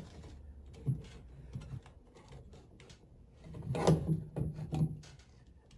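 Hands working sheathed electrical cables into a metal junction box: small clicks and scraping as the cable and wires rub on the box and its clamp. There is a sharper click about a second in, and a louder stretch of handling noise a little past halfway.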